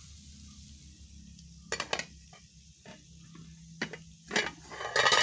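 Kitchen utensils knocking against a pan or dishes: a few separate clinks about two seconds in, then denser, louder clattering near the end.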